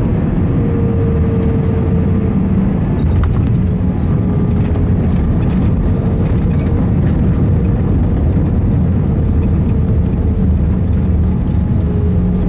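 Airbus A320 heard from inside the cabin on touchdown and landing rollout: a steady, loud roar of engines and rushing air, with a low hum that drifts slightly in pitch and a few faint rattles.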